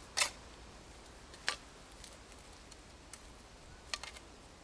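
A long-handled garden tool scraping and drawing loose soil around the foot of a newly planted tree: a handful of short, scratchy strokes, the loudest at the very start.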